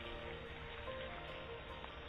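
Background music with a simple melody, over a steady hiss from mushrooms sizzling in a cast iron pan as their moisture cooks off.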